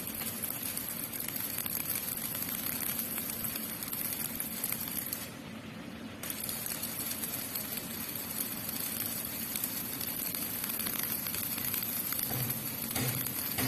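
Electric arc welding on a steel frame: the arc gives a steady crackling, frying hiss. The arc stops for about a second near the middle, then strikes again and runs on.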